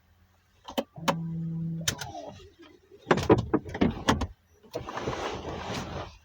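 Car cabin sounds: a click, a short steady electric motor hum lasting about a second, another click, then a run of loud clunks and handling noise followed by a couple of seconds of rushing hiss.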